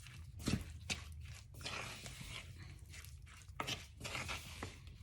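Marinated chicken pieces being mixed in cornstarch in a bowl: soft rustling and squishing with a few light knocks.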